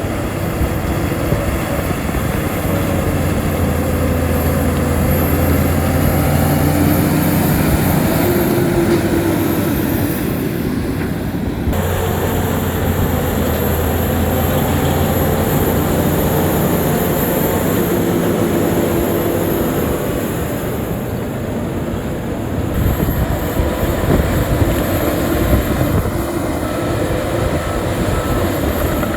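Shantui crawler bulldozer's diesel engine running steadily under load, with the heavy rolling clatter of a tracked machine and a thin high whine. The engine note shifts in pitch now and then and changes abruptly about a third of the way in.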